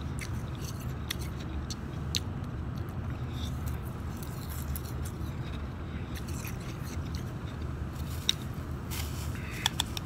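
Shaved ice crunching as it is chewed, heard as scattered sharp crackles and clicks, with a spoon scraping and clinking in a glass bowl near the end. A steady low hum runs underneath.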